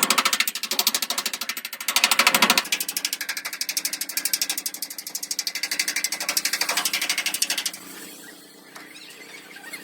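Rapid mechanical clatter, about eight or nine sharp strokes a second, pausing briefly and then cutting off suddenly near the end.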